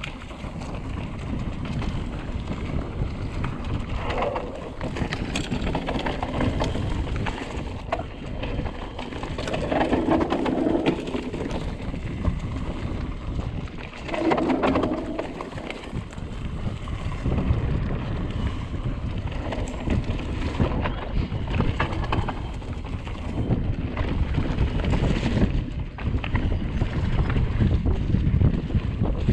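Wind buffeting the action camera's microphone over the rumble and rattle of a Trek Remedy 7 full-suspension mountain bike rolling fast down a dirt trail, with irregular knocks from the rough ground.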